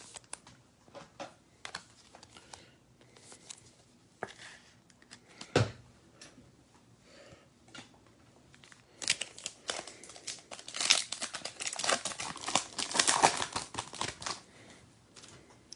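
Foil trading-card pack wrapper being torn open and crinkled, a dense run of crackling starting about nine seconds in. Before that, a few light taps and clicks as cards and a plastic card stand are handled, with one louder knock about halfway through.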